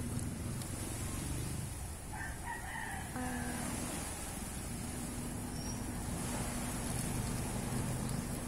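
A rooster crows once, about two seconds in, lasting a little over a second, over a steady low hum.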